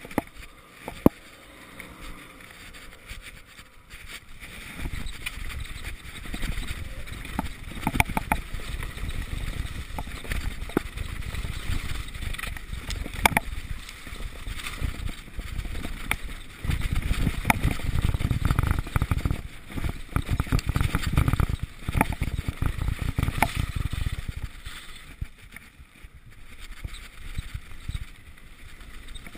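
Mountain bike descending a dirt woodland trail: wind rushing over the microphone and the tyres rumbling over the ground, with sharp knocks and rattles from the bike over bumps. It starts quieter and grows louder from about five seconds in, easing off near the end.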